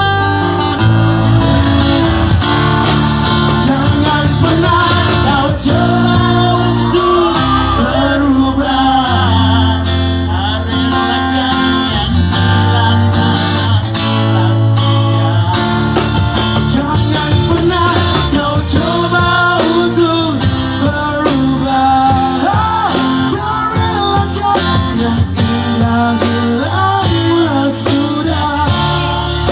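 Live band playing a song: strummed acoustic guitar, electric bass holding low notes and a drum kit keeping the beat, with a melody line that bends in pitch.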